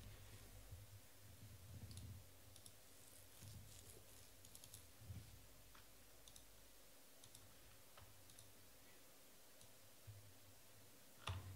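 Near silence: room tone with faint scattered clicks and a few soft knocks, one louder knock near the end.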